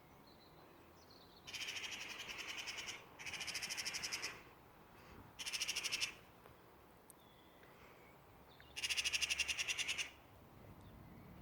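A bird's rapid rattling chatter, given in four bursts of about a second each with pauses between.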